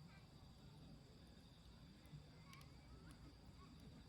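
Faint outdoor ambience: a steady high insect drone with a few short bird chirps and occasional faint clicks.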